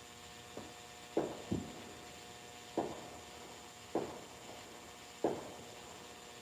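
Steady rain hiss with heavy drops knocking irregularly on a hard surface, six sharp ringing taps at uneven spacing.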